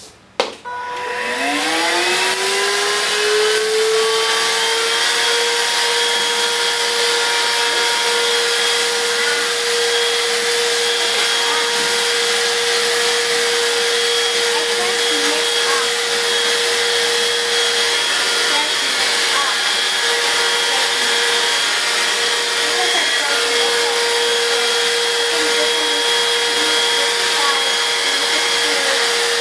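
Dibea F6 cordless stick vacuum switched on with a click, its motor spinning up in a rising whine over about four seconds, then running steadily with a high whine and rushing air as the crevice tool sucks up a pile of oats and dust bunnies from a hard floor.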